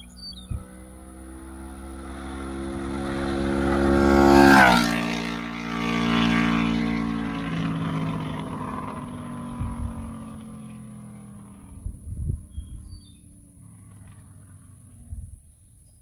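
Honda VFR800's V4 engine through an aftermarket Delkevic exhaust as the motorcycle passes at speed. The note swells as it approaches and peaks about four and a half seconds in with a sharp drop in pitch as it goes by, then fades away over the next ten seconds.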